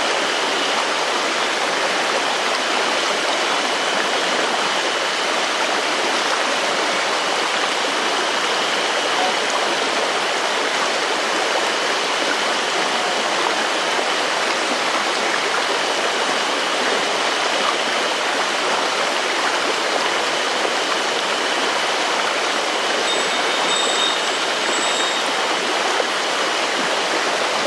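River water flowing steadily, a continuous, unbroken rush.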